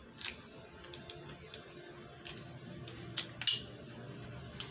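Scattered sharp clicks and clacks from the parts of a Glock 35 airsoft pistol being handled and fitted, about five in all, with the loudest pair a bit past three seconds in.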